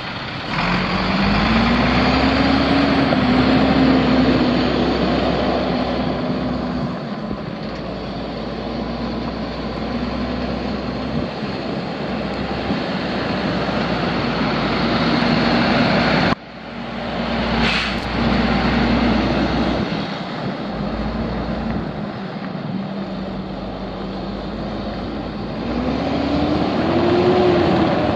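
International DT530 8.7-litre six-cylinder diesel engine running, rising in pitch and falling back twice, near the start and again near the end. The sound breaks off abruptly about 16 seconds in, and there is a single sharp click about two seconds later.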